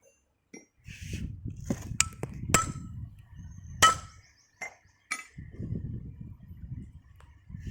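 A handful of sharp metal-on-metal taps, each with a brief ring, the loudest about two and a half and four seconds in. They are typical of a hammer or tool striking steel parts during rotavator oil-seal work. A low rumble runs beneath them.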